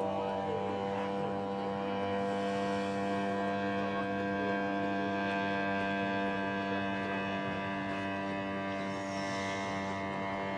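Model airplane's motor running at a steady throttle, a constant droning hum whose pitch wanders only slightly.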